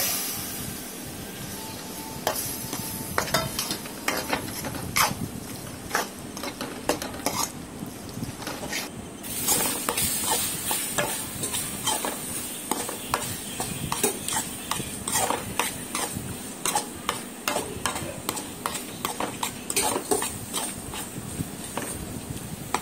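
Spatula repeatedly scraping and clacking against a metal kadai as a thick masala paste with chopped tomatoes is stirred and sautéed, in irregular strokes over a light frying sizzle.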